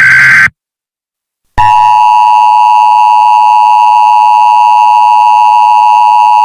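Emergency Alert System SAME tones. The last of the screeching digital header bursts cuts off about half a second in. After about a second of silence, the two-tone EAS attention signal starts and holds one steady, loud tone.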